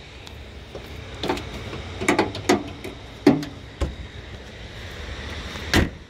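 A Nissan pickup's hood being lowered and shut: a few knocks and clunks, then one loud slam near the end as it latches.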